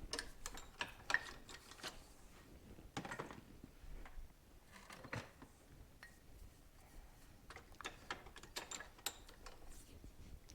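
Scattered light clicks and taps of hand tools and small metal parts being handled while working the seal out of the fork leg, coming in short clusters with pauses between.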